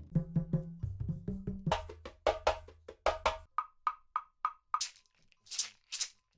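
Afro house percussion loops from a sample pack: quick drum hits over a deep bass line for about three and a half seconds, then a sparser pattern of short, high, pitched knocks with a few hissing swells near the end.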